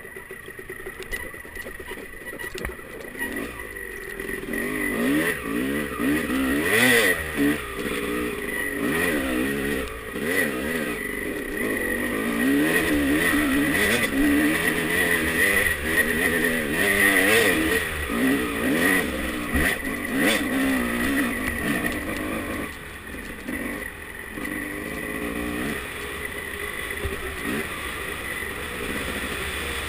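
Dirt bike engine revving up and down over and over as it is ridden along a rough trail, with a few short knocks along the way.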